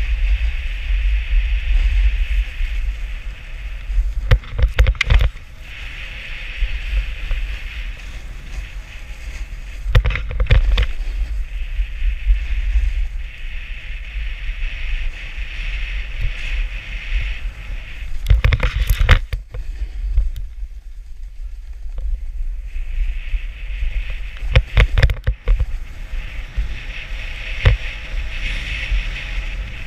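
Wind buffeting the microphone of a camera riding along on a snowboarder, over the hiss of the snowboard's edge scraping across groomed snow as it carves downhill. Every several seconds there is a short clattering knock as the board rides over bumps. The scraping drops away briefly about two-thirds of the way through.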